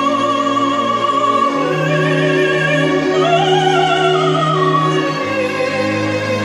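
Recorded classical music: an operatic soprano sings with wide vibrato over sustained orchestral strings, her line rising to its highest notes around the middle.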